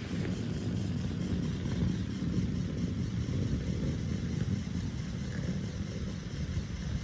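Lego Technic model's electric motor and gear train running steadily as it drives the forwarder's crane.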